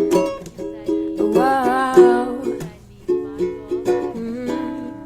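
Song intro played on plucked ukulele: a run of picked notes, with a brief wavering held note about a second and a half in.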